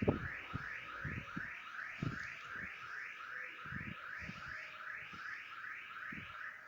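Electronic siren-like alarm sound: a warbling tone that sweeps quickly upward about three times a second, over and over, stopping suddenly at the end. Soft low thumps sound underneath.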